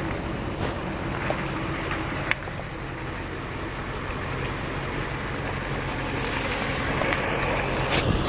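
Steady vehicle engine and road noise with some wind, with a few light clicks.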